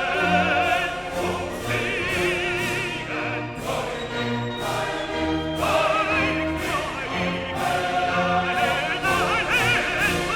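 Background music: operatic singing with wide vibrato over orchestral accompaniment, with a steady beat of sharp hits about twice a second.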